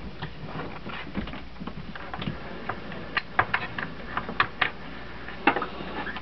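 Plastic clicks and light knocks from the housing halves of a cordless drill battery pack being pressed back together by hand. The clicks are sharp and irregular, and they come more often in the second half.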